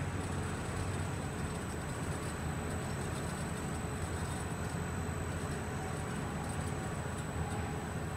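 Fendo 350M metal-cutting bandsaw running steadily with its blade cutting through the last of the workpiece under hydraulic downward feed, a constant hum with a thin steady high-pitched whine. This is the end of the cut, just before the blade stops automatically at the bottom of its travel.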